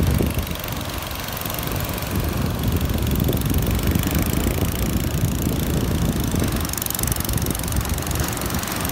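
A small engine running steadily, its low rumble unbroken.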